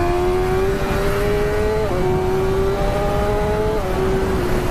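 Sport motorcycle's inline-four engine under acceleration while riding, its note climbing steadily and stepping down twice, about two seconds in and near the end, as it shifts up a gear, over steady wind rush.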